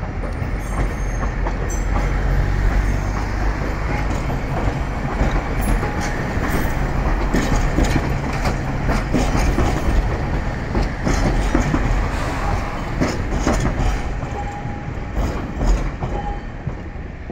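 Hiroshima Electric Railway 3700-series articulated tram rolling past at close range, a steady rumble with its wheels clacking repeatedly over the track. It fades as the tram moves away near the end.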